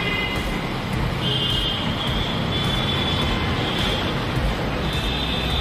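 Steady road traffic noise, with a high thin tone coming and going several times.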